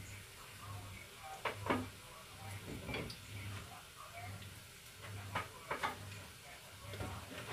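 A metal utensil clicking and tapping against a frying pan as food is turned and lifted out, a handful of sharp knocks at uneven intervals. Underneath, a faint low thud repeats a little faster than once a second.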